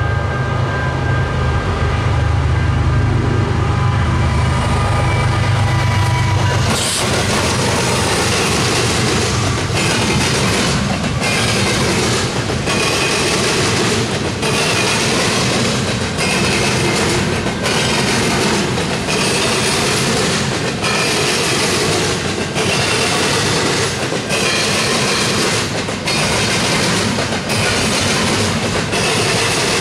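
A diesel-hauled double-stack freight train passing close by. For about the first seven seconds there is a deep locomotive engine rumble. Then the container cars roll past with a steady clatter and regular beats as each car's wheel sets cross the rail joints.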